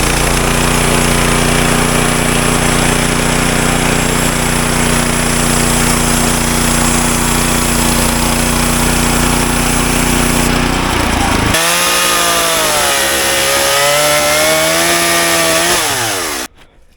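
Woodland Mills HM126 bandsaw sawmill with its gas engine running at a steady pitch while the blade saws through a log. About eleven seconds in, the steady engine note drops away and a wavering pitched whine carries on over the sawing noise. The sound cuts off abruptly near the end.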